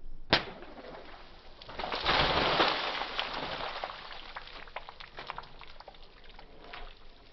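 A water balloon bursts with one sharp snap, followed by water splashing down and scattered drips and splats on wet concrete.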